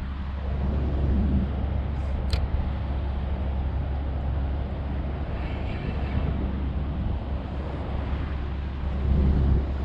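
Wind buffeting an action-camera microphone, a steady low rumble with hiss over it, with a couple of light clicks about two seconds in.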